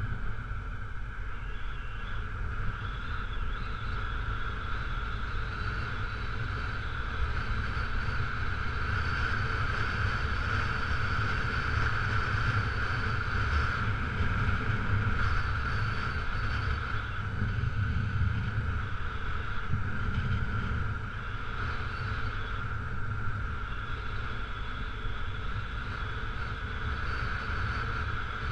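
Honda CRF250L's single-cylinder four-stroke engine running steadily while the bike rides a dirt road, with a constant low wind rumble on the camera microphone.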